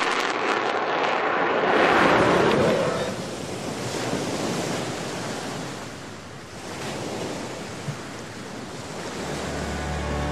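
Rushing noise of surf and wind on the microphone. It is loudest for the first few seconds, then fades to a lower, steady level.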